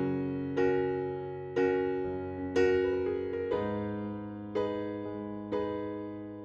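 Background music: soft electric piano chords, struck about once a second and left to ring and fade.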